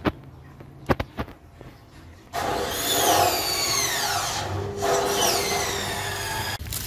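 A couple of sharp knocks, then a small motor starts abruptly about two seconds in and runs for about four seconds with a whine that falls in pitch, before cutting off suddenly.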